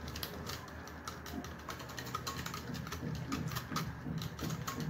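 A utensil ticking quickly and irregularly against a glass bowl as a liquid milk and yogurt mixture is stirred briskly by hand.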